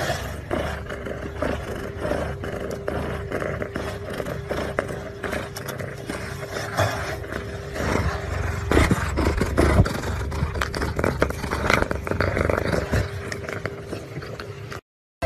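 A cat rubbing against the phone that is filming it, heard as close scraping and rustling, with a low rumble underneath and a faint steady hum.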